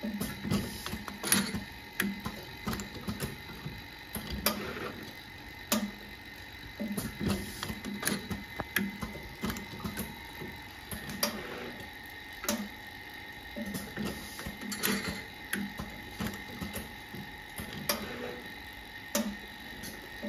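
Automatic wax injection machine for jewelry molds running its cycle: its air-driven cylinders and mold gripper give irregular clicks and clacks with short low knocks, over a faint steady whine.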